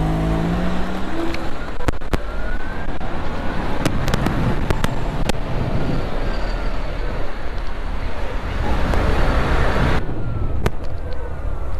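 Wind rushing over the microphone and tyre and road noise from a Moonster Evo 3 electric motorbike riding through town traffic, with a few sharp clicks and faint rising whines as it pulls away. The sound changes abruptly about ten seconds in.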